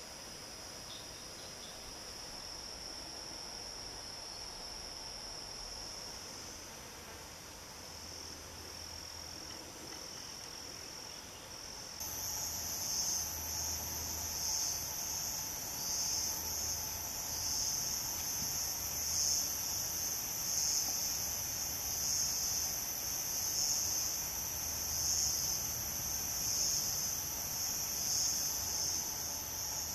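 Steady, high-pitched chorus of forest insects. About twelve seconds in it cuts abruptly to a louder chorus that swells and fades in a slow, even rhythm.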